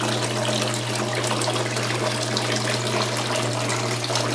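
Water splashing and spraying out of PVC plumbing into an aquarium and a flood-and-drain grow bed as the grow bed fills, over a steady low hum from the running water pump.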